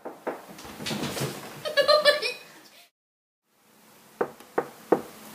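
Knuckles rapping three times on an interior door, sharp and quick, about four seconds in. Before that come scattered bumps and a short voice-like cry, then a second of silence.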